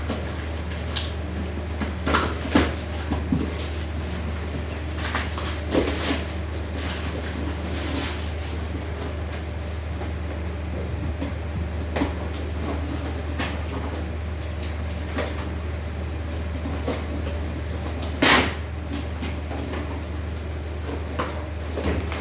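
Scattered knocks, clicks and clatters of parts and packaging being handled during an unboxing, the loudest a sharp clack about eighteen seconds in, over a steady low hum.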